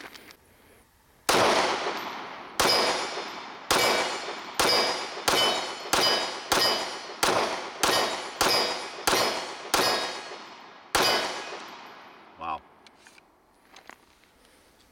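Mossberg MC2c 9mm pistol fired thirteen times, the first shots about a second apart, then about one every two-thirds of a second, with a last shot after a short pause. Each shot is followed by the ring of a steel target being hit.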